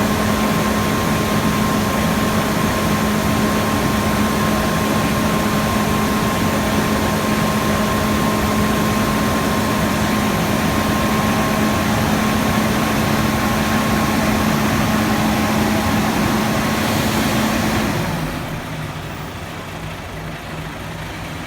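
IVECO Stralis Cursor 13 straight-six truck diesel idling after a cold start, a steady loud run with a thin high whine over it. About 18 seconds in it quietens and its pitch drops slightly as the idle settles lower, 'fast leise'.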